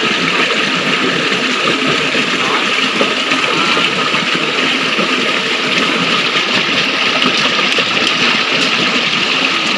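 Mountain stream water rushing over rocks: a steady, even rush of flowing water.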